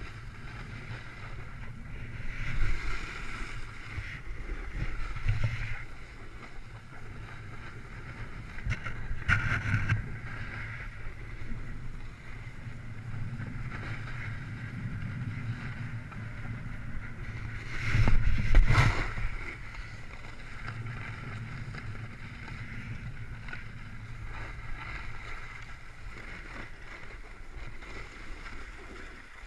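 Ski-slope descent heard from a rider-worn camera: edges scraping and hissing over packed, groomed snow, with wind buffeting the microphone. The noise swells with several turns, the loudest about two-thirds of the way through, and eases off near the end as the rider stops.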